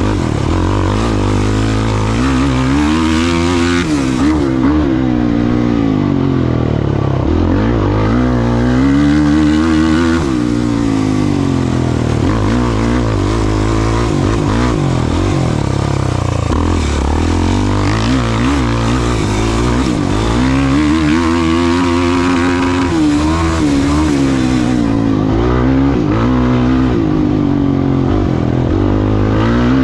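A racing ATV's engine under hard riding, revving up and dropping back over and over, every few seconds, as it accelerates and shifts.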